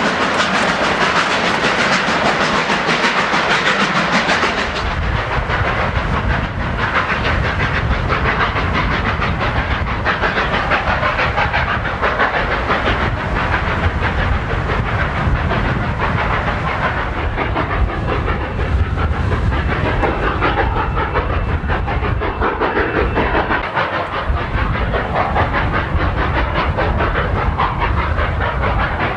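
Narrow-gauge steam-hauled passenger train rolling by, its coach wheels clattering over the rails, with steam hissing. A deeper rumble comes in after about five seconds.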